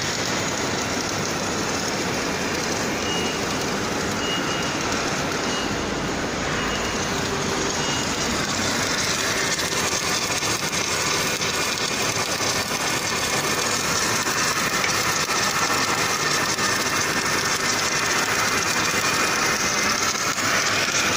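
Automatic longitudinal seam welding machine running a weld: a steady, loud hiss that grows a little stronger about nine seconds in.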